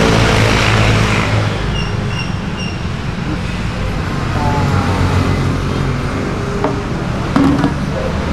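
Road traffic rumbling steadily, with three short high beeps about two seconds in. Near the end a sharp metal clank as the lid goes onto the aluminium bakso pot.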